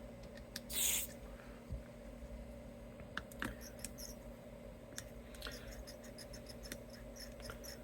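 Faint small clicks, ticks and light scrapes of guitar electronics being handled, with a brief hiss about a second in, over a faint steady hum.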